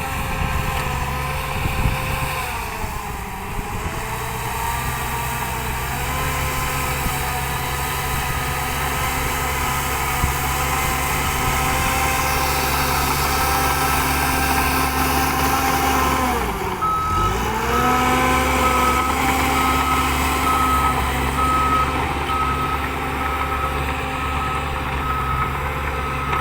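Shantui DH13J bulldozer's diesel engine running steadily under load. About two-thirds of the way in the engine speed dips sharply and recovers, and a reversing alarm starts beeping at a steady pace, showing the dozer backing up.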